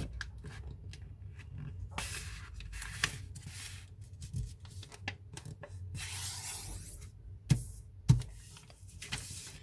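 Sheet of paper being folded and creased by hand: repeated crinkling rustles and sliding scrapes as the paper is lined up and pressed flat, with a couple of sharp taps on the table near the end.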